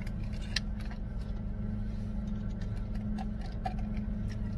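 Steady low hum of a car running, heard inside its cabin, with a few light clicks from a plastic drink cup and straw being handled.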